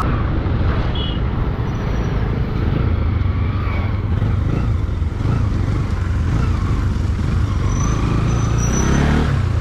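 Bajaj Pulsar NS motorcycle running steadily under way, its engine mixed with a heavy low wind rumble on the microphone.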